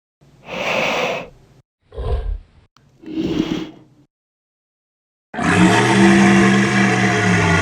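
Dinosaur roar sound effects: three short roars in the first four seconds, the middle one a deep low growl, then after a pause a long, loud roar held on a steady pitch that starts past five seconds in.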